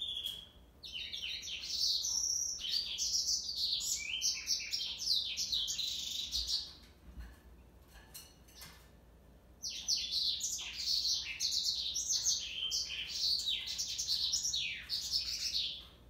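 Male yellow canary (Serinus flaviventris) singing high-pitched song of rapid, varied trills and twitters. It sings in two bouts of about five to six seconds each, with a pause of about three seconds between them.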